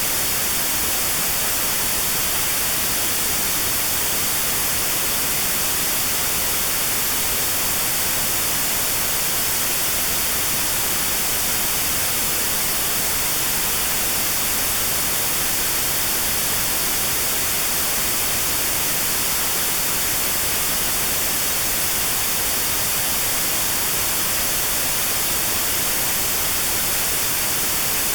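Notch-filtered white noise: a steady, even hiss with a narrow band around 4 kHz cut out, the notched sound therapy used against 4 kHz tinnitus.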